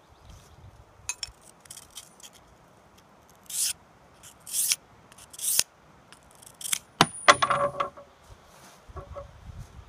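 A small carbide router bit is rubbed across a DMT credit-card diamond sharpening plate in three short scraping strokes. About seven seconds in comes a sharp metallic clink with a brief ring, followed by a short clatter; this is the loudest sound.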